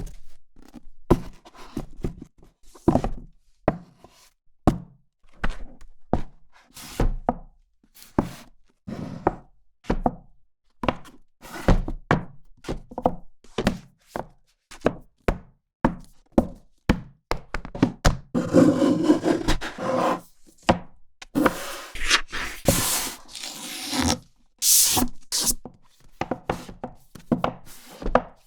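Books being handled: an irregular string of short thuds, taps and rubs from covers and pages, with a longer stretch of continuous rustling about two-thirds of the way through.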